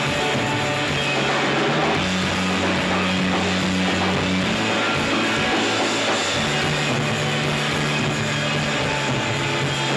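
Live shoegaze rock band playing an instrumental passage: a dense wash of electric guitars over held bass notes that change every couple of seconds, with drums.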